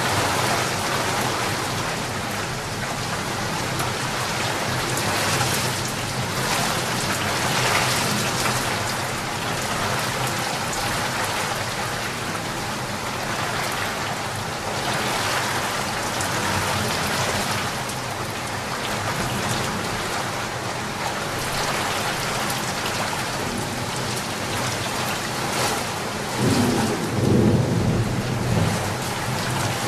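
Rain falling steadily, with a low rumble of thunder near the end.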